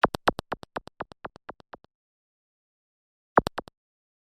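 Transition sound effect of rapid sharp clicks, about eight a second, fading out over two seconds; after a pause, a short burst of four clicks about three and a half seconds in.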